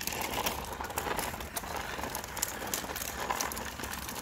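Footsteps splashing through shallow water: an irregular patter of small splashes and taps.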